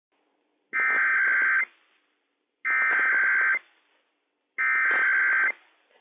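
NOAA Weather Radio Emergency Alert System SAME header: three identical bursts of rapid two-tone digital data, each just under a second long, with about a second between them. The header encodes the start of a Required Weekly Test.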